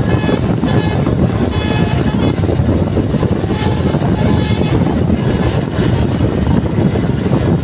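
Steady loud rumble of a bus on the move: engine and road noise. Faint short high tones from its basuri multi-tone horn sound a few times, mostly in the first half.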